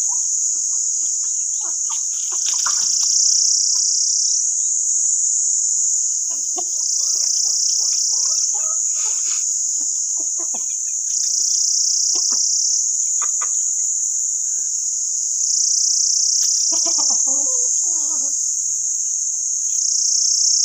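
Steady, high-pitched insect chorus that steps up and down in loudness every couple of seconds, with Aseel chickens clucking softly now and then, most clearly about three-quarters of the way through.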